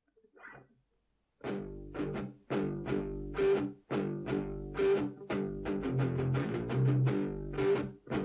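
Music played back through studio monitor speakers and picked up by a microphone in the room: plucked guitar notes over bass, starting about a second and a half in after a brief near-silent gap.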